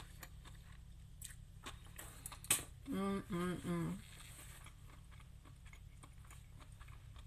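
A person eating noodles: faint chewing and mouth clicks with one sharper click, then three short closed-mouth hums, "mm-mm-mm", about three seconds in, a sound of approval while chewing.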